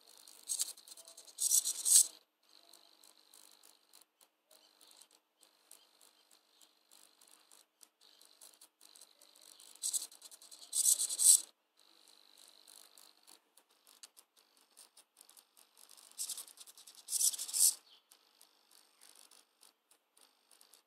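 Small hobby servo motor inside a crocheted toy whirring in three short bursts, each about a second and a half with two quick moves, as it turns the toy; between bursts a faint steady high buzz with small ticks as the servo holds position.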